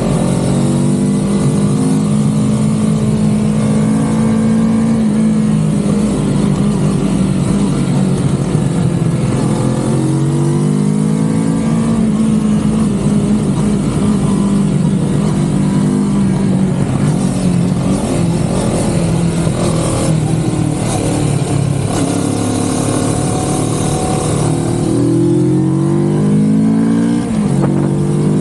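CFMoto 650NK motorcycle's parallel-twin engine under way, its pitch repeatedly climbing under acceleration and dropping sharply at gear changes, several times.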